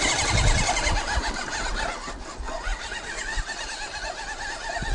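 The JY66 RC Jeep's 260 brushed electric motor and gearbox whining, the pitch wavering up and down with throttle and load as it crawls over rock. The tyres rumble on the stone in the first second.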